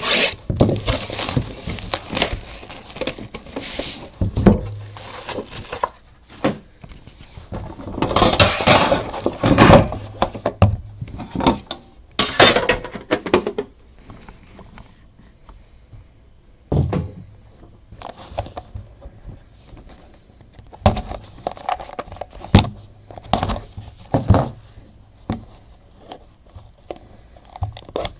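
Plastic wrap being cut and torn off a cardboard hobby box of trading cards, crinkling loudly in bursts through the first half. Later come scattered taps and clicks of cardboard being handled as the small inner card box is opened.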